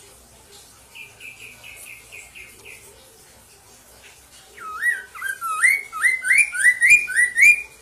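Chestnut-capped laughingthrush (poksay mandarin) singing. First comes a quiet run of about eight short whistled notes. Then, about four and a half seconds in, a loud series of upslurred whistles follows, about three a second, rising in pitch as it goes.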